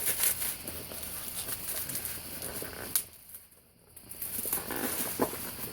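Cardboard box and its packing rustling and crinkling as it is handled and opened by hand, with a sharp click about three seconds in and a brief lull just after.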